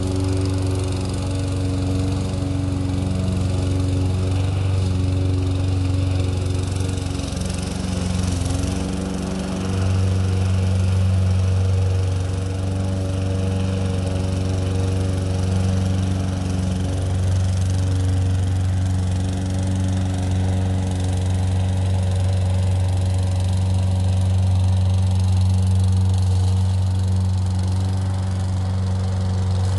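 Toro Recycler 22-inch 150cc gas self-propelled lawn mower, its small single-cylinder four-stroke engine running steadily. The engine note wavers briefly about eight seconds in, then settles back to an even drone.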